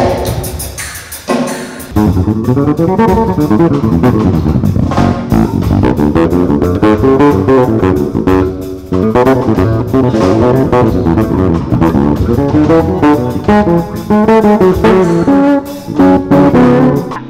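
Electric bass guitar playing a busy melodic line with a band and drums, getting louder about two seconds in.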